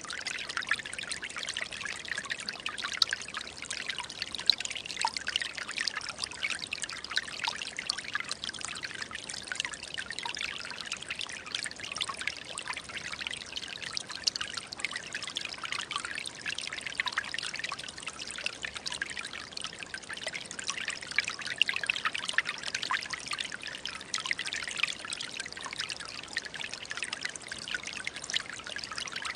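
Small forest stream running over stones: a continuous bright burble and trickle, with many small splashes and droplet ticks.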